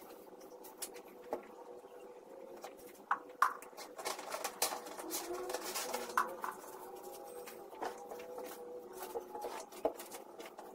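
Scattered knocks, clicks and rustling of a small room being cleaned by hand, with two sharp clicks about three seconds in and another about six seconds in, over faint steady tones.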